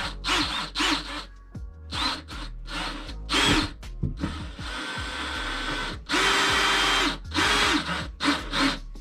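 Power drill driving screws, trigger pulled in a series of short bursts with two longer runs near the middle; the motor whine rises in pitch at the start of each run.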